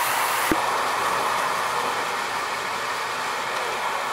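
Lionel and Marx toy trains running on their track: a steady whirring rumble of wheels and motors, with a single sharp click about half a second in.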